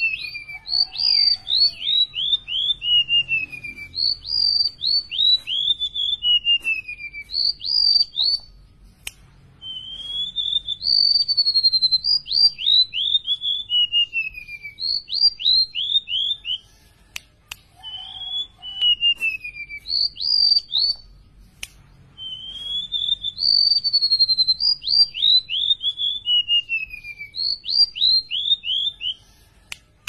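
Golden-bellied gerygone singing: phrase after phrase of high, sweet whistled notes, each phrase a quick run of notes slurring downward in pitch, with short pauses between phrases.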